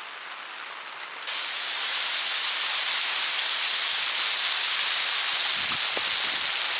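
Water falling from a mossy rock face and splashing onto a dirt road: a loud, steady, hissing spray that comes in abruptly about a second in.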